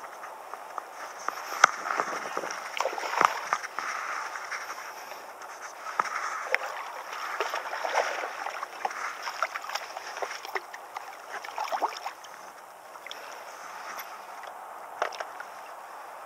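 A hooked largemouth bass splashing and thrashing at the water's surface as it is played to the bank, with irregular splashes that thin out after about twelve seconds.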